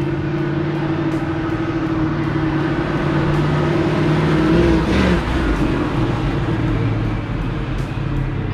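1969 Chevrolet Nova SS's 350 small-block V8 running under throttle as the car is driven. Its pitch creeps up, then drops sharply about five seconds in, and the engine carries on at a lower, steady pitch.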